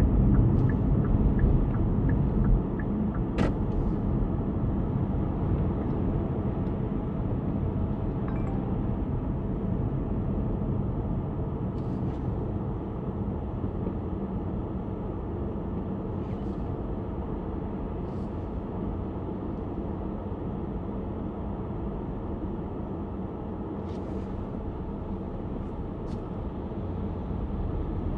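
Road and tyre rumble heard inside the cabin of a moving Hyundai Kona Hybrid, steady and low, easing off gradually as the car slows, with a few faint clicks.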